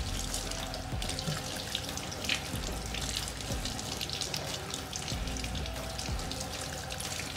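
Tap water running and splashing into a stainless steel sink as a gutted fish is rinsed under it by hand.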